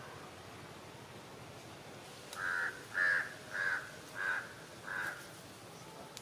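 A crow cawing five times in quick succession, starting a little over two seconds in.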